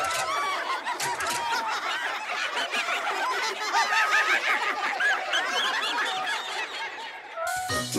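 Many cartoon animal voices calling at once, short overlapping cries sliding up and down in pitch. Music comes in near the end.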